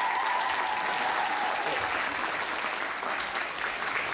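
Audience applauding, with a long high held note riding over the clapping for about the first two seconds.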